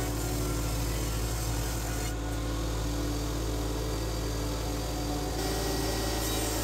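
A jointer running with a steady machine hum, the hiss over it thinning for about three seconds in the middle.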